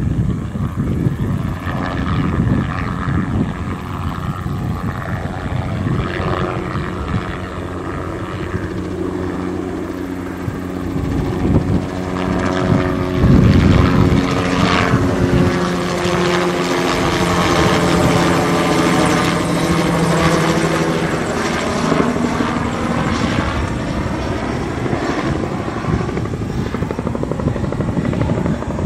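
Bell 206B-3 JetRanger III crop-spraying helicopter, a single-turbine machine, making a low pass: the rotor beat and engine whine build to their loudest about 13 seconds in as it passes close overhead, then the pitch of its tones falls as it moves away.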